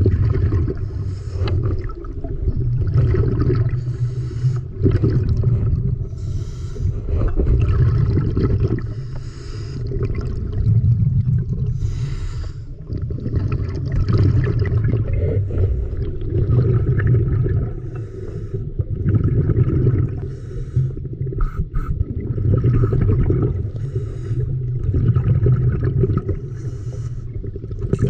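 A swimmer's breathing, heard underwater, in regular bursts about every two seconds over a steady low rush of water.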